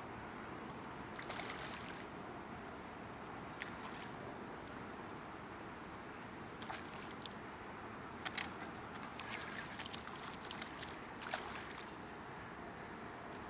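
Steady wash of sea water moving along the shore, with scattered small clicks and taps, in a cluster about a second in and another busier run past the middle.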